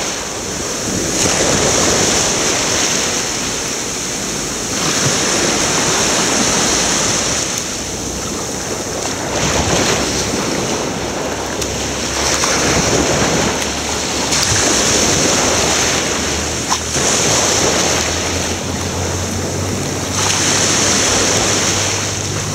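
Ocean surf washing in swells that rise and ease every few seconds, with wind buffeting the microphone. One brief click partway through.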